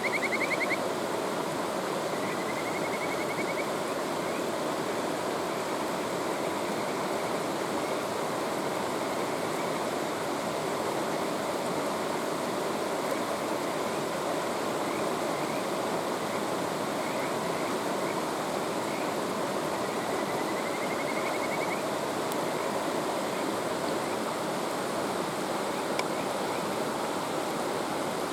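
Mountain stream rushing steadily, with kajika frogs (Buergeria buergeri) calling over it in quick runs of short, high notes that climb slightly in pitch. Runs come right at the start, a couple of seconds in, and again about twenty seconds in.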